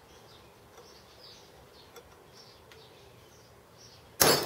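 A single sharp hammer blow on a centre punch, marking a hole position in steel angle iron, about four seconds in. Before it there are only faint, high chirps repeating in the background.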